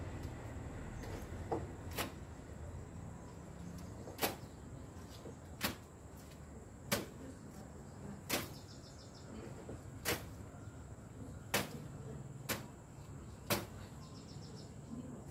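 A small child slapping a wet cloth down onto a wet concrete floor, as in hand-washing laundry: about ten sharp smacks, one every second or two.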